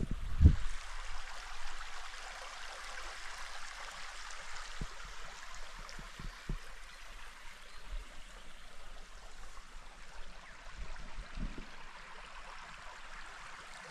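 Forest ambience: a steady rushing hiss, with scattered low bumps, the loudest just after the start.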